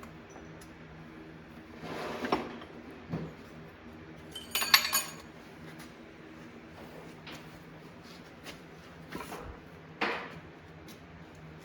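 Metal tractor transmission parts and hand tools clinking and knocking together during disassembly: a few separate strikes, the loudest a bright ringing clink about five seconds in.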